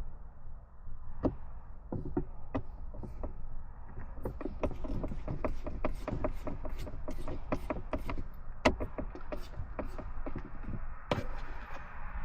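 Clicks and knocks of hands and tools working on a plastic car center console while its new lid is fitted. A few at first, then several a second from about four seconds in, with one louder click near the two-thirds mark.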